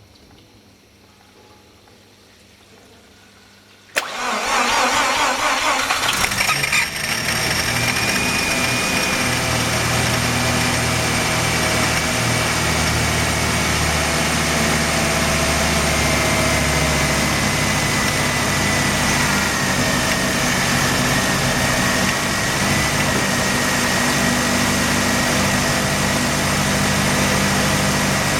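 Mazda RX-7 FD's twin-rotor rotary engine cranked over about four seconds in, catching after roughly three seconds of cranking and then idling with a rough, misfiring idle. It is the engine's first start, the crank the owner says makes a peculiar noise.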